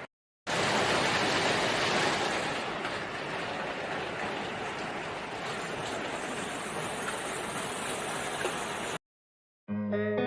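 Steady rushing of heavy falling water, even and unbroken, starting and stopping abruptly at cuts. Electric guitar music starts near the end.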